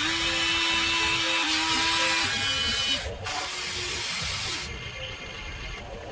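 Electric motors of a radio-controlled model excavator whining as it raises the boom with a loaded bucket and swings the cab. The whine is loud at first, breaks off for a moment about three seconds in, then picks up again and eases near the end.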